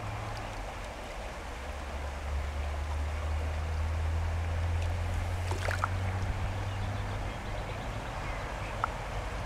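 River water flowing at the bank, over a steady low rumble that drops away about seven seconds in.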